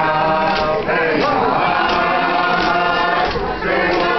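Iñupiat drum song: a group of singers chanting together over the steady beat of large frame drums (qilaun) struck with sticks, about one beat every two-thirds of a second. The singing dips briefly about three and a half seconds in.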